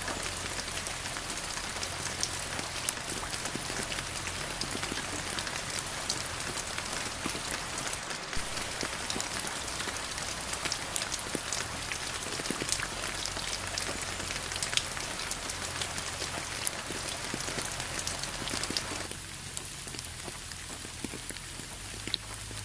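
Steady rain falling, with many distinct drop hits in an even hiss; about three-quarters of the way through it drops away to a quieter, thinner hiss.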